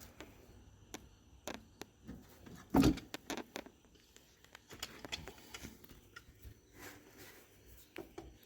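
Scattered clicks and knocks of a hand tool and fingers working on a tight, slippery transmission part on a riding mower, with one louder knock about three seconds in.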